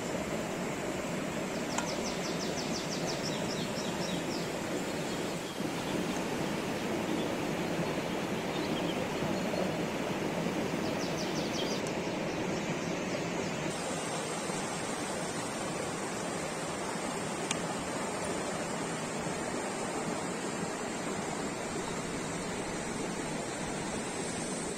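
Steady outdoor background noise, an even rushing hiss, with brief faint rapid high ticking about two seconds in and again about eleven seconds in.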